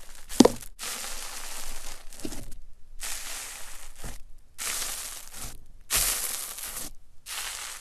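A hand pressing again and again into a bowl of bubbly foam slime. Each press gives a crushing burst of noise about a second long, with short silent gaps between, about six presses in all. About half a second in there is a brief pitched squeak, the loudest moment.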